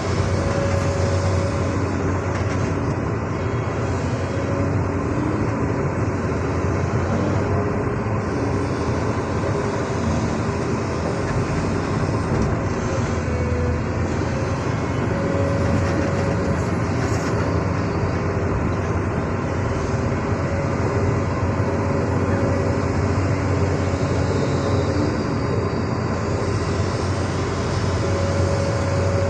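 Excavator's diesel engine running steadily at work, with faint pitched tones coming and going above the engine hum.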